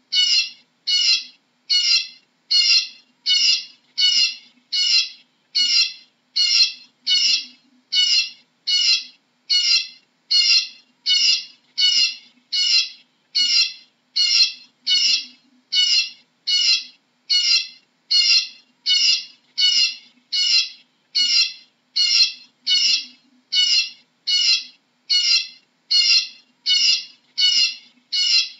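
Eurasian bullfinch calling: short high notes repeated at a very even pace, a little more than one a second.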